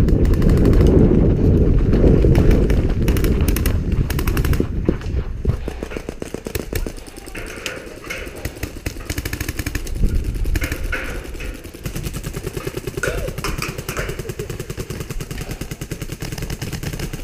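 Rapid, continuous clicking fire from airsoft guns. A heavy low rumble from the player moving and knocking the camera mic covers the first few seconds, then eases off.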